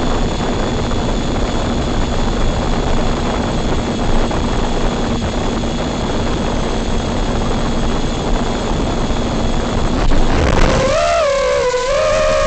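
Small FPV drone's motors and propellers whirring steadily in a loud buzzing hiss with a fixed hum. About ten seconds in, the hiss drops away and is replaced by a single wavering whine.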